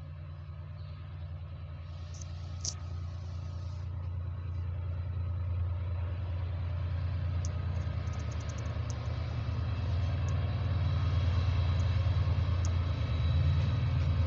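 Class 68 diesel locomotive's Caterpillar V16 engine working under power, a steady low drone that grows steadily louder as the train passes close by. A few faint high-pitched ticks sound over it.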